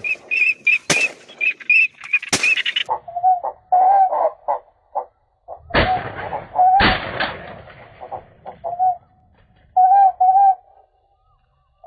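Duck calls repeating over the hide. For the first three seconds they are quick, high whistled calls, about three to four a second; after that come lower, quacking calls. Several sharp cracks break in, three in the first few seconds and two more around the middle.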